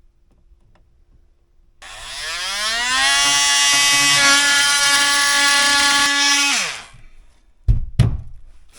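Handheld electric power tool spinning up with a rising whine, running steadily and unloaded for about three and a half seconds, then winding down. Two sharp knocks follow near the end.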